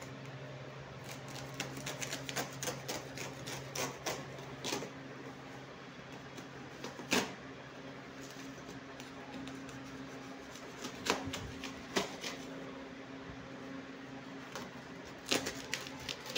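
Utility knife slitting and ripping a parcel's woven plastic sack wrapping and packing tape: irregular bursts of sharp clicks and scratchy tearing, with a loud snap about seven seconds in and another cluster near the end. A steady low hum runs underneath.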